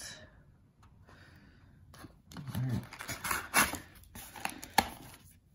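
A cardboard box of aluminium coffee capsules being handled as a capsule is pulled from its tray: rustling and a few sharp clicks, the sharpest near the end. A brief murmur of a voice comes before them.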